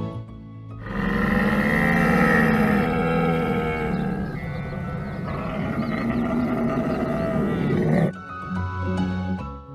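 A camel calling in one long bellow of about seven seconds, starting about a second in, over background music.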